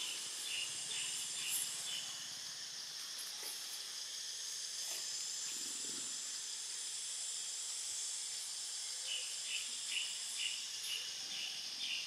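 Steady high-pitched drone of forest insects, with short repeated chirps, several a second, in a run near the start and another near the end.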